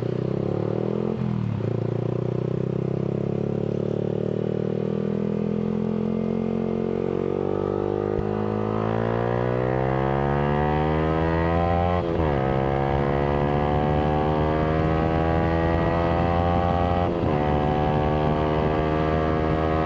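Yamaha R15 V3's single-cylinder engine through an aftermarket Villan exhaust, under way and accelerating. Its pitch climbs steadily and drops at upshifts about a second in, about twelve seconds in and about seventeen seconds in.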